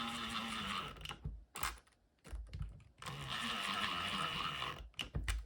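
Small powered screwdriver running in two bursts of about a second and a half each, its pitch dropping as it drives and snugs screws into the plastic tool housing, with a few clicks in between.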